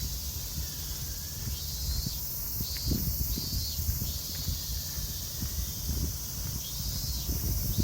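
Outdoor ambience: a steady high insect drone over a low wind rumble on the microphone.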